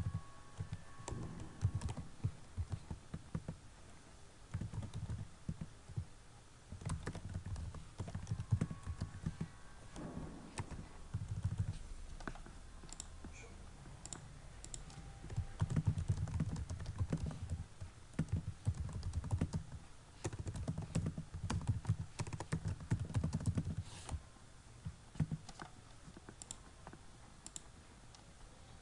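Typing on a computer keyboard: irregular runs of keystrokes with short pauses between them, thinning out near the end.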